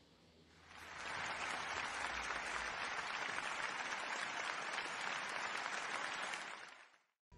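Applause from many hands, swelling in about a second in, holding steady, then fading away near the end.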